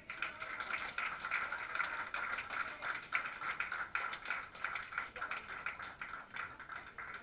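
Audience applauding: a dense patter of hand claps that starts suddenly and stops near the end.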